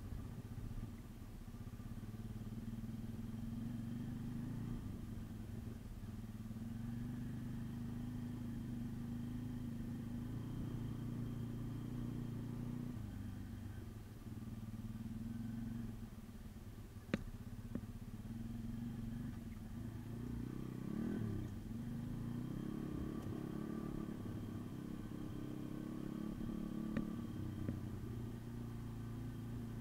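MRF 140 RC pit bike's single-cylinder four-stroke engine running at a steady, moderate pace on a rough dirt track, with a brief rise and fall in revs about two-thirds of the way through. A sharp click sounds once just past halfway and again near the end.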